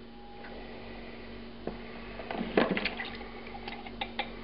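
Wet splashing and sloshing of braised beef and its liquid in a plastic container, with a few sharp knocks and clinks; the loudest is about two and a half seconds in.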